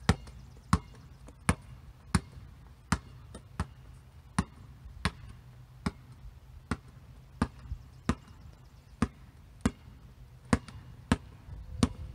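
A basketball dribbled on a concrete driveway, bouncing about three times every two seconds. The bounces grow fainter as the player moves away and louder again near the end as he comes back.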